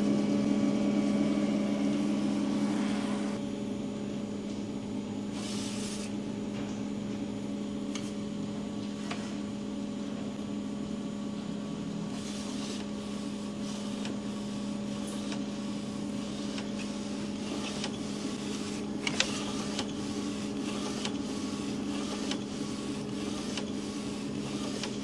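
Pangoo Jet A3 UV flatbed printer running a print job: a steady mechanical hum, a little louder for the first three seconds, with short swishing noises of the print carriage traversing, coming more often in the second half, and one sharp click partway through.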